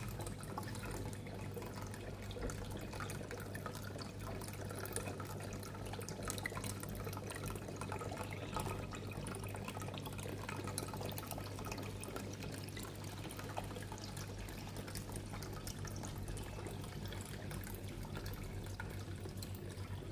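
Indoor water fountain trickling and splashing steadily, with many small drips, over a low steady hum.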